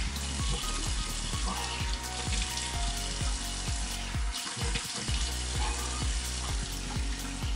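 Bathroom tap running into the sink while a face and beard are rinsed of cleansing foam. Background music with a steady beat plays underneath.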